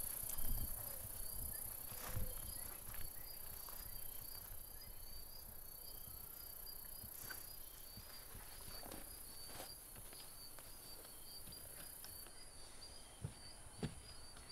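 Crickets chirping in a steady, rapid high-pitched pulse, with scattered footsteps and rustling through long grass, loudest in the first couple of seconds.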